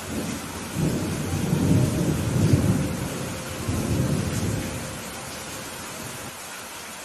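Steady rainfall with a low roll of thunder that rumbles in about a second in, swells twice and dies away after about four seconds.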